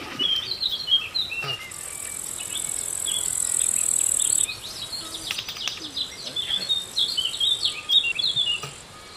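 A steady high-pitched insect buzz, like a cricket or cicada, starting about two seconds in, breaking off for a moment midway and stopping just before the end, with birds chirping in short repeated notes throughout.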